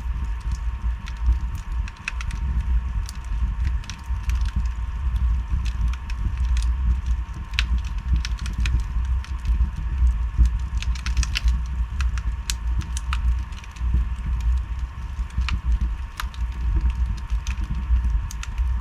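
Wood fire burning in a fireplace: logs crackling with frequent, irregular sharp pops over a steady low rumble.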